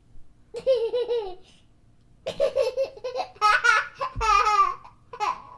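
A young child laughing in several high-pitched bursts, with short pauses for breath between them.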